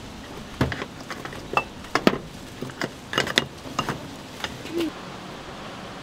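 Light metal clinks and knocks from a row of batter-filled egg-bread (gyeran-ppang) molds being handled, about a dozen separate taps with a quick cluster near the middle.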